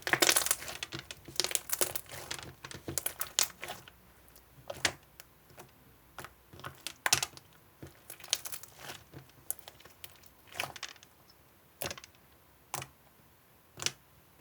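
Crinkling and irregular sharp clicks from something being handled, dense and crackly for the first few seconds, then thinning to scattered single clicks.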